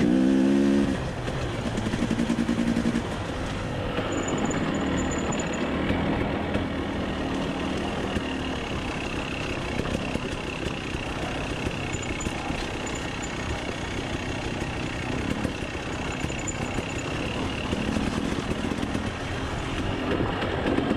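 Dirt bike engine on a rocky trail: a loud burst of throttle that drops away about a second in, a short rise again soon after, then steady lower-throttle running under wind noise.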